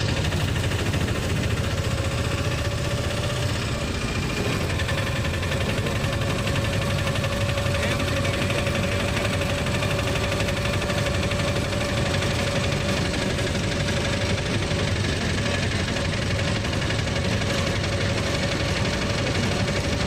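Auto-rickshaw engine running steadily while driving along a road, heard from the driver's seat: a fast, even pulsing note with a thin steady whine that comes in about two seconds in.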